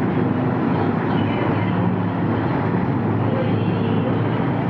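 Steady low mechanical rumble and hum of a berthed car ferry's engines running, under an even wash of noise.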